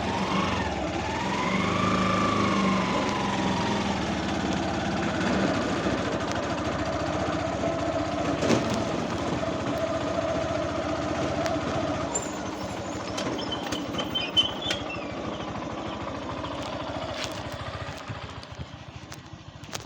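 A motor vehicle's engine running steadily, its pitch rising and falling once about two seconds in, with a few sharp knocks later on; it quietens near the end.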